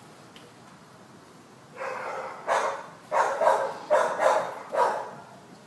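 A dog barking about six times in quick succession, starting about two seconds in.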